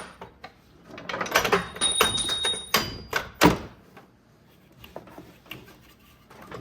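A pry bar levering a stuck alternator loose from its mounting bracket: a run of metal knocks and scrapes with brief metallic ringing, the loudest clank about three and a half seconds in, then quieter.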